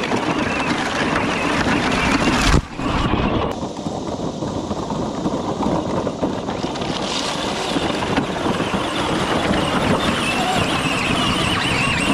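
Power Wheels John Deere Gator ride-on toy's electric drive running as its wheels churn through a muddy puddle, a dense, steady noise that breaks off sharply for a moment about two and a half seconds in.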